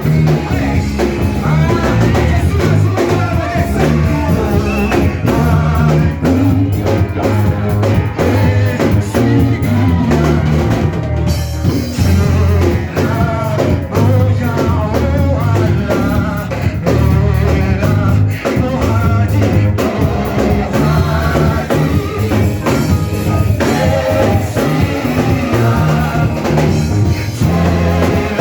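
Live church praise music: a band with drums, bass and guitar playing a steady beat under singing.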